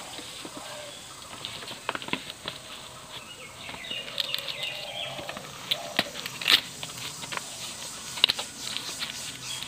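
A fresh banana leaf rustling and crackling as hands fold it around a parcel of taro leaves, with sharp crinkles now and then, the loudest about two-thirds of the way in. Birds chirp in the background.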